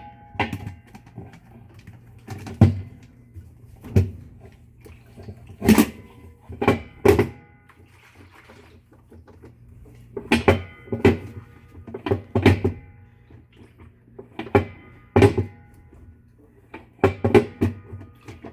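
Irregular metallic clunks and knocks, roughly one a second, some with a short ringing after them, over a steady low hum: a loose part on a Whirlpool top-load washer being rattled, which is not supposed to be loose.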